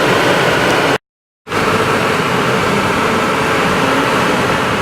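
Steady, loud road and wind noise of a moving vehicle, with no pitched engine note standing out. It drops out for about half a second about a second in.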